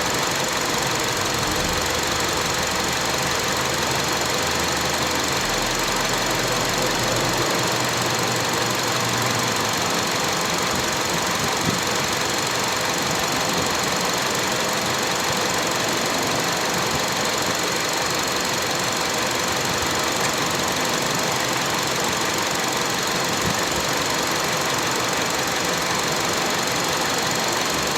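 Steady running noise of a 2005 Honda CR-V 2.4 engine bay with the engine idling, an even whooshing hum that holds unchanged throughout.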